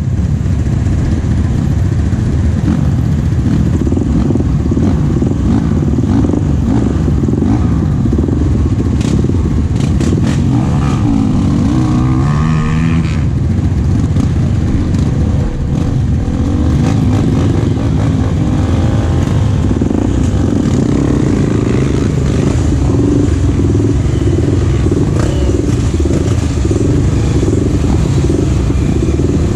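Enduro motorcycle engine running hard, the revs rising and falling with the throttle. About twelve seconds in, the engine note dips and climbs again.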